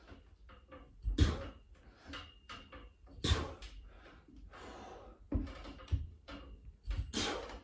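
Knocks and rattles from a freestanding pull-up station's metal frame, four of them about two seconds apart, as a set of pull-ups is done, with breathing between the knocks.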